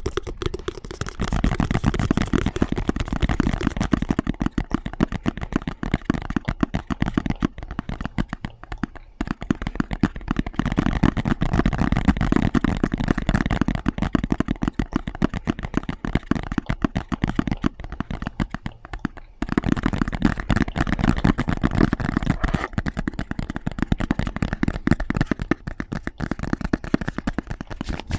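Rapid, dense tapping on objects, several tapping tracks overlapping at once. The texture changes at about four, nine and nineteen seconds in as one tapping clip fades into the next.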